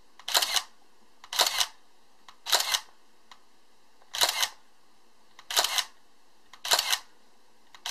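Minolta Maxxum 2xi film SLR firing its shutter six times, spaced about one to one and a half seconds apart. Each release is a short mechanical clack of the mirror and shutter.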